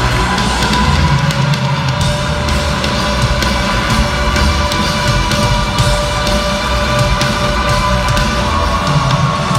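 Live rock band playing loud in an arena, drums hitting steadily under guitar, heard from the stands with the hall's echo.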